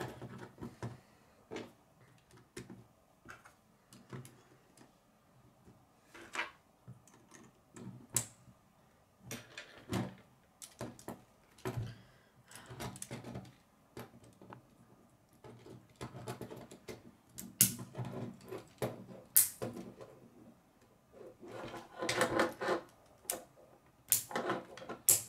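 K'nex plastic rods and connectors being handled and snapped together: irregular clicks and short rattles, with a few sharper, louder snaps.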